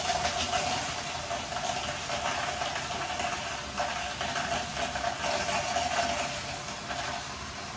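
Steady rush of running water, as from a shower.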